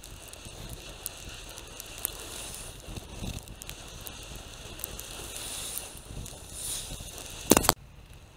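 Wind and riding noise picked up by a camera mounted on a moving bicycle, with scattered clicks and rattles. A loud crackling burst comes near the end, then the sound drops off abruptly.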